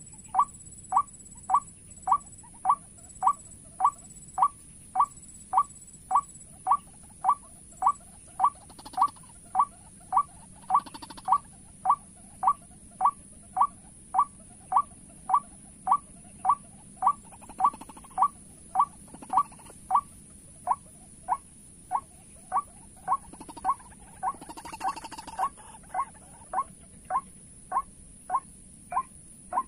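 Recorded white-breasted waterhen call played as a lure: the same short note repeated very evenly, about one and a half times a second.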